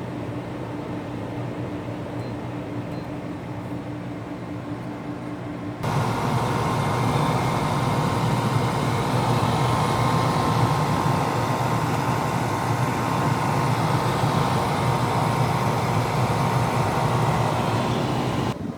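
Danby 12,000 BTU portable air conditioner running with its compressor on: a steady hum with low tones under a fan rush. About six seconds in the sound abruptly gets louder and fuller, with a faint high whine, and stays so until it drops back just before the end.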